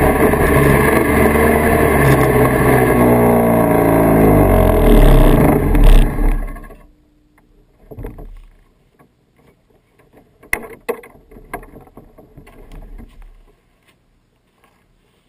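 1979 Kawasaki Invader 440 snowmobile's two-stroke engine running, its pitch falling as the sled slows to a stop, swelling once near six seconds, then shut off about seven seconds in. Afterwards, scattered faint knocks and clicks.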